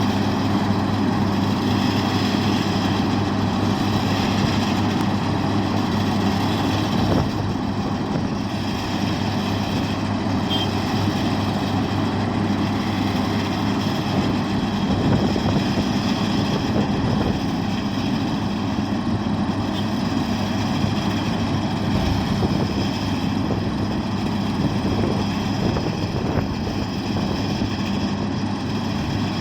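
Heavy diesel engine of road-construction equipment running steadily, its low tone holding level throughout.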